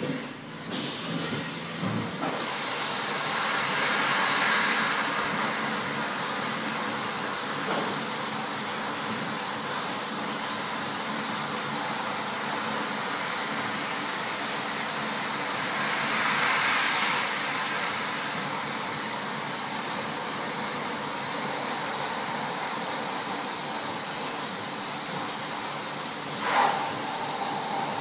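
CNC machining centre face-milling 42CrMo4 steel with an ISCAR TangFin indexable-insert face mill under flood coolant: a steady hiss of coolant spray and cutting that swells and eases a little. Near the end there is a sharp knock, and then a steady cutting tone comes in.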